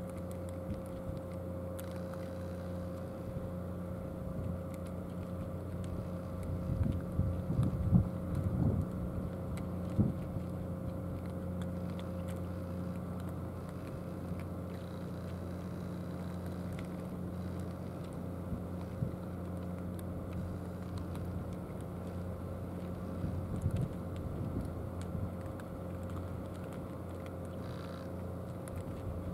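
Steady low hum of an idling engine, with cats crunching food from plastic trays over it; a cluster of louder clicks and crunches comes about a quarter of the way in.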